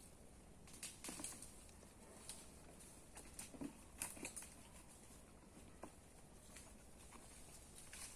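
Faint, irregular rustling and light taps, like footsteps moving through forest litter, a little louder around the first and fourth seconds.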